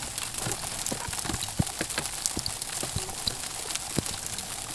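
Freezing rain ticking and pattering on surfaces: irregular light taps and clicks over a steady hiss.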